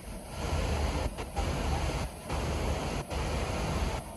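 A steady rushing outdoor noise with a strong low rumble, dipping briefly a few times.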